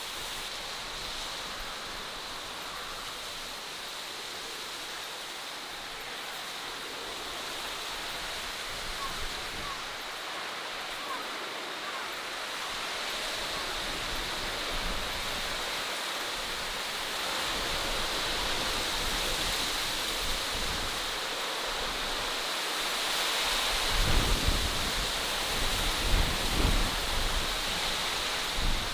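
Outdoor natural ambience: a steady, even rushing noise that grows slightly louder, with gusts of wind buffeting the microphone for a few seconds near the end.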